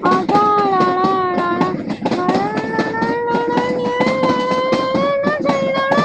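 FEVE narrow-gauge freight train rolling past, its wheels clattering rapidly over the rail joints. Over the clatter runs a long, wavering, high-pitched whine that breaks off briefly about two seconds in and then slowly rises in pitch.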